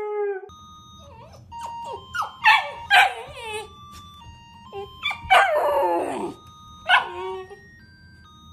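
A husky's howl ends about half a second in. A dog then gives a run of loud barks and yelps whose pitch slides downward, the sharpest around the middle and once more near the end, over a simple plinking background melody.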